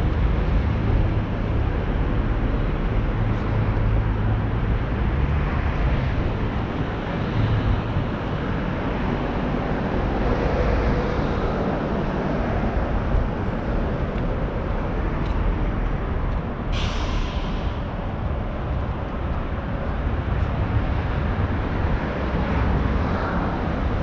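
City street traffic: vehicles passing with a steady low rumble, and a short hiss about seventeen seconds in.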